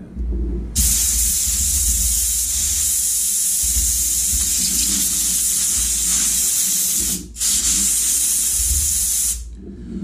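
Compressed air from a workshop airline hissing steadily as it is blown into a seatbelt buckle's warning-light microswitch to clear dirt from the contacts. It starts about a second in, breaks off briefly about seven seconds in, and stops near the end.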